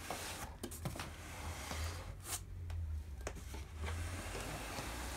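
Handling noise: soft rubbing with several light clicks, over a steady low hum.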